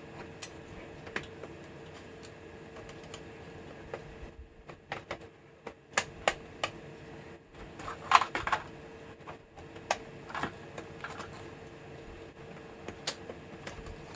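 Scattered plastic and metal clicks and knocks of hands fitting a CD-ROM drive and its ribbon and power cable connectors into a desktop PC case. The clicking comes in a busy flurry from about four seconds in, loudest around eight seconds, under a faint steady hum.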